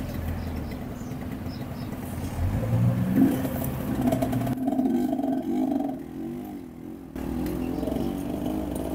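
A motor vehicle engine revs up, rising in pitch about two and a half seconds in and then running unevenly, over steady street hum.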